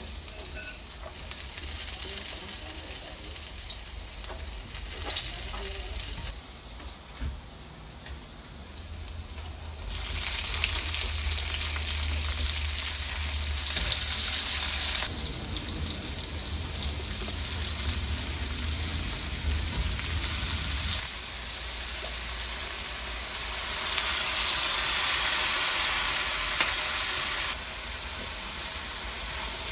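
Garlic, onions and tomatoes sizzling in hot oil in a wok, stirred now and then with a spatula. The sizzle gets clearly louder about ten seconds in.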